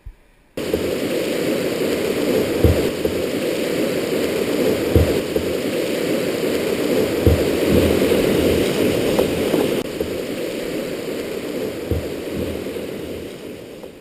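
Rushing water of a river rapid, a steady loud rush, with a few dull low thumps scattered through it.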